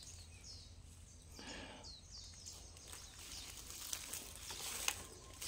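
Faint high chirps from a small animal, each sliding down in pitch, repeated several times over the first few seconds. A soft rustle comes about a second and a half in, and scattered footstep clicks come near the end.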